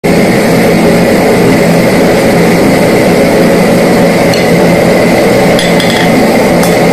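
A blacksmith's forge running with a steady rushing noise and a thin whistle above it. The steel bar is heating to a bright orange glow. A few faint metallic clicks come past the middle.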